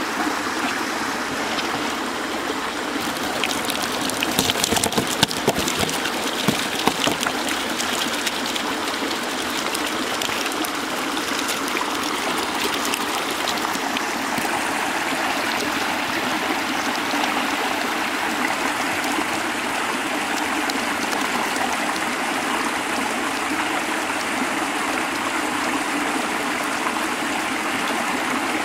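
Water running steadily in a shallow canal, fed by water pouring out of concrete culvert pipes. A few short sharp knocks or splashes stand out about four to seven seconds in.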